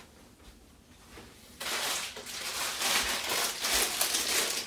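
Instant Pot electric pressure cooker hissing steam from its lid just after the steam release valve is turned to sealing on hot contents: an irregular, crackling hiss that starts suddenly about a second and a half in.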